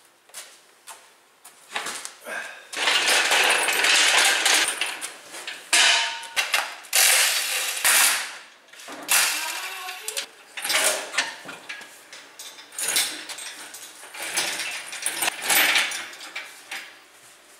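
Irregular metallic clanking, rattling and scraping from an engine hoist's chains and hand tools as a car engine is unbolted and lifted out of the engine bay, with a long rattling stretch a few seconds in.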